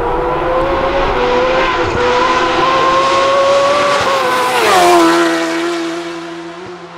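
Kawasaki Ninja H2R's supercharged 998 cc inline-four at high revs as the bike approaches at speed, its pitch climbing steadily, then dropping sharply as it passes about four and a half seconds in and fading away.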